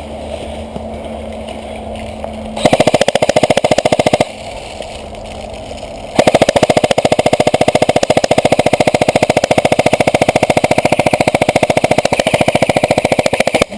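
Rapid, even mechanical clicking of BBs being loaded into an airsoft magazine with a tube speed loader, close by and loud. It runs in two stretches, a short one a few seconds in and a longer one from about six seconds to the end.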